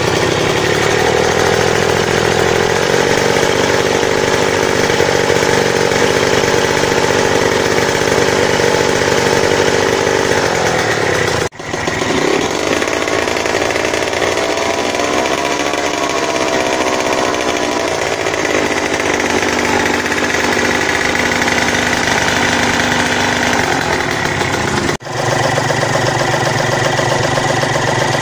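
Yamaha TZM 150's two-stroke single-cylinder engine running on the stand, with a rise and fall in revs near the middle. The sound cuts out for an instant twice.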